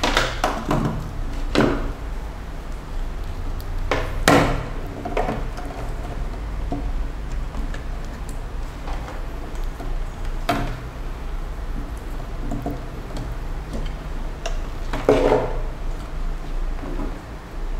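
Handling noise as an HDMI cable is plugged in: the cable and its plastic connectors knock and click against a wooden tabletop and the devices in scattered sharp taps, with a steady low hum underneath.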